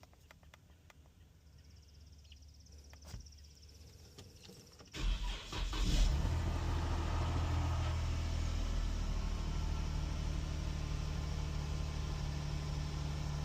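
2013 Dodge Durango engine cranking and starting about five seconds in, then settling into a steady idle, its first run after a new downstream oxygen sensor was fitted and the check engine light cleared.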